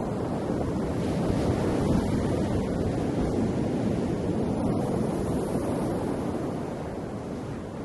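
Ocean waves washing onto the shore, a steady low rush of surf that swells about a second in and eases off toward the end.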